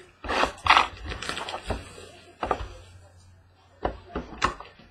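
Cardboard trading-card boxes being handled and set down on a hard tabletop: a run of knocks and scrapes, loudest in the first second, with a few more knocks near the end.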